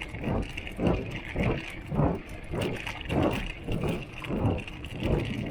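Mountain bike bottle cage rattling and knocking while riding, in a rough rhythm of about two knocks a second, over steady tyre and wind noise.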